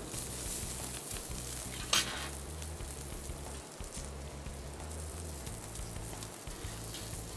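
Aged ribeye steak sizzling on a hot grill, a steady hiss, with a brief sharp click about two seconds in.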